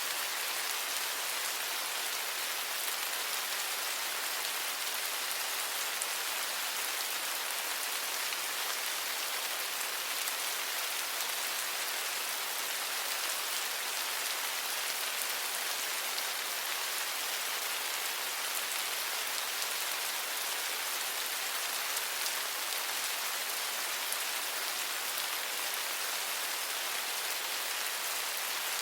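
Steady rain falling on a surface, an even hiss with faint scattered drop ticks.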